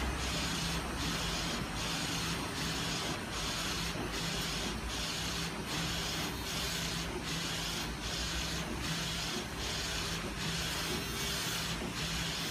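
Flatbed inkjet printer running, its print-head carriage sweeping back and forth: a steady mechanical hiss and hum that briefly drops about once every 0.8 seconds as the carriage reverses at the end of each pass.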